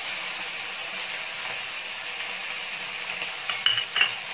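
Chopped vegetables sizzling steadily in hot oil in a kadhai as green onions go in and are stirred. A wooden spatula knocks against the pan a few times near the end.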